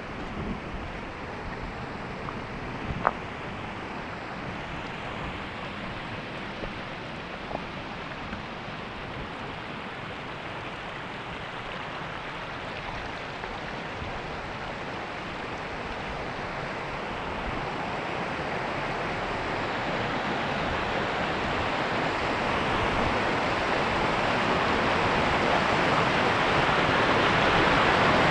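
The Kagami River rushing through a rocky gorge, a steady roar of falling water that grows steadily louder. A sharp click about three seconds in.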